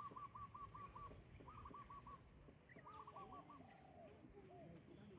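Faint bird calls: short bouts of quick, evenly repeated clear notes, about five to eight in a bout, coming back every second or so, with softer, lower curving calls beneath.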